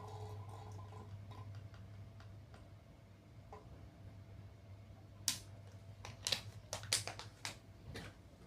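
A steady low hum, then from about five seconds in a string of sharp plastic clicks and knocks as a Mr. Coffee coffee maker is handled and taken apart.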